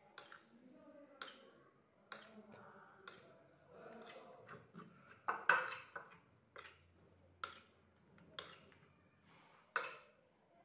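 Wet smacks and clicks about once a second as hands work an oily spice marinade into a piece of frozen meat.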